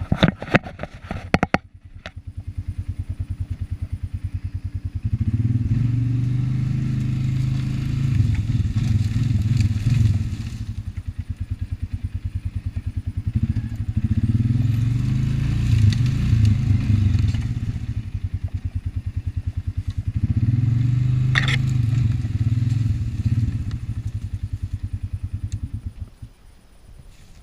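ATV engine running, throttled up three times for several seconds each as the quad is manoeuvred, easing back to idle in between, then shut off near the end. Some clatter is heard at the start.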